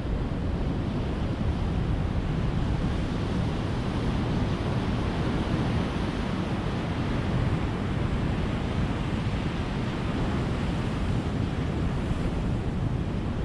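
Ocean surf: a steady, even wash of waves with no single breaker standing out.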